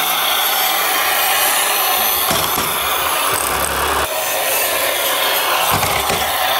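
Toy garbage truck rolling across a wooden surface, its plastic wheels and gearing giving a steady, rough rasping noise, with a brief break about four seconds in.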